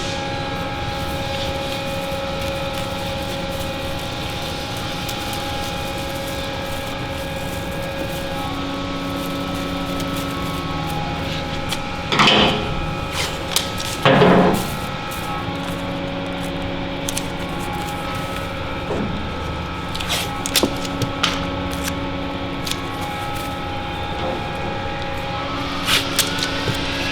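Masking tape pulled off the roll twice, about 12 and 14 seconds in, with a few small clicks later, over a steady hum.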